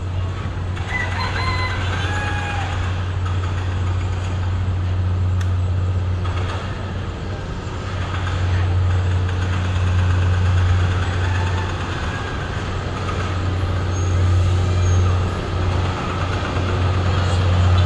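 Diesel locomotive engine running with a steady low drone as the train slowly approaches, growing louder toward the end.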